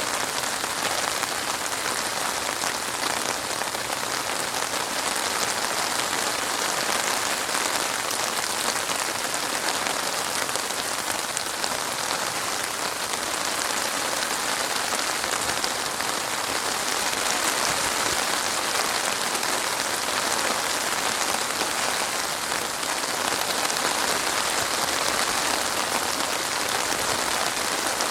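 Steady rain falling on a surface.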